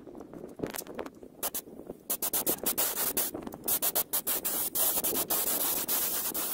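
Air spray gun spraying adhesive: a hissing spray that grows loud about two seconds in, broken by many short gaps as the trigger is worked.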